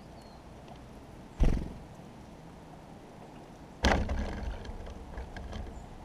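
Two sharp thumps about two and a half seconds apart on a wooden seed tray right by the microphone, followed by a few small ticks of seed: a small bird, a tufted titmouse, landing on and moving about the feeder.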